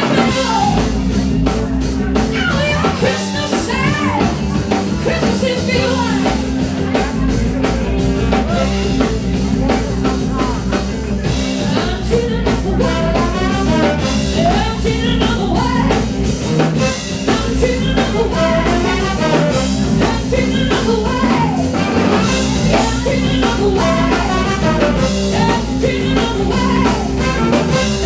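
Live funk band playing: a woman singing over electric guitar, electric bass, drum kit and a horn section of saxophones, trumpet and trombone.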